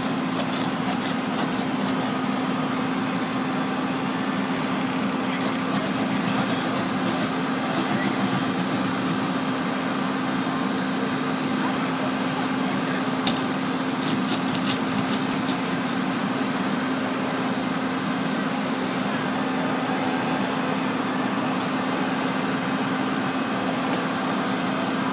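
An engine running steadily at an even pitch through the work on the car. Clusters of sharp clicks and crackles come over it near the start, about six seconds in, and again between about 13 and 17 seconds.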